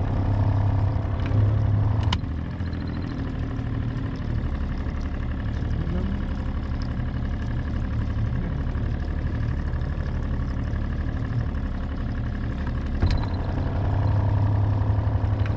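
A small fishing boat's engine running steadily with a low hum, and a sharp knock about two seconds in and another near the end.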